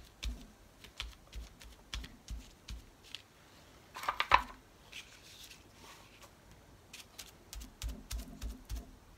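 A piece of cleaning sponge dabbing paint onto paper: repeated soft taps, two or three a second, that pause for a couple of seconds past the middle. There is a brief louder noise about four seconds in.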